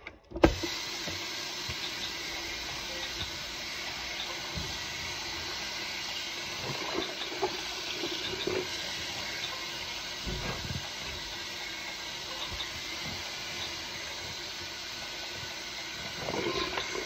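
Bathroom sink faucet turned on about half a second in, then running steadily as the stream pours onto a soaked plush toy being rinsed in the basin, with a few soft knocks.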